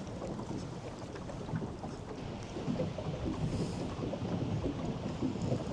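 Wind rumbling steadily on the microphone, a gusty low roar without any distinct events.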